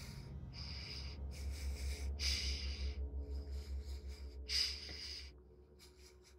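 Heavy, ragged breathing: about five loud breaths in a row, the loudest a little before the end, over a low pulsing rumble that fades out.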